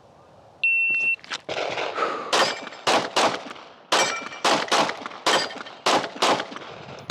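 A shot timer beeps once, then a Glock 45 9mm pistol fires a fast string of about a dozen shots, some in quick pairs. Steel plates ring briefly on some of the hits.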